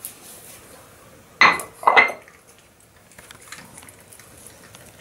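A ceramic food bowl clatters twice on a tiled floor as it is set down, about a second and a half in. After that come faint small clicks as a small dog eats wet food from it.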